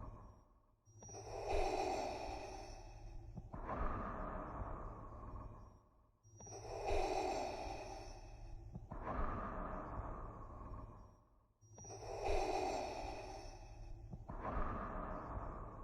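Darth Vader's respirator breathing sound effect: slow, mechanical, masked breaths, each in-and-out cycle taking about five seconds, with a brief silent gap between breaths. Three full breaths are heard.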